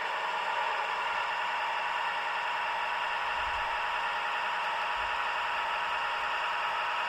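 Roco H0 model of a DB class 628.4 diesel railcar, its digital sound decoder playing a steady diesel engine sound through the model's small onboard speaker as the train rolls along.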